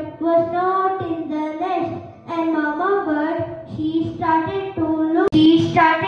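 A child singing a melody into a microphone, holding notes and gliding between them, with a sharp click and brief dropout about five seconds in.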